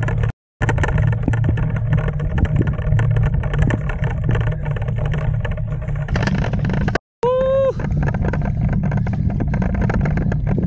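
Wind buffeting the camera microphone over bicycle tyres crunching on a gravel track, a dense steady rumble that cuts out briefly twice. Just after the second cut, about seven seconds in, a short pitched tone rises slightly and falls.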